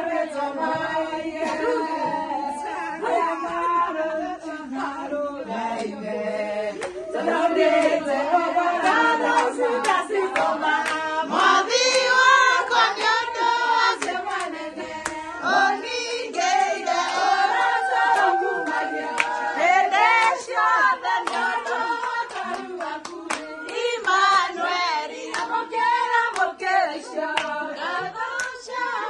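A group of women singing together and clapping along.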